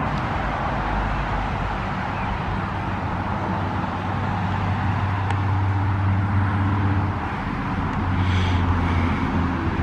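A motor vehicle's engine running nearby: a steady low hum that swells about three seconds in, eases off around seven seconds and comes back near the end, over a constant outdoor background rush.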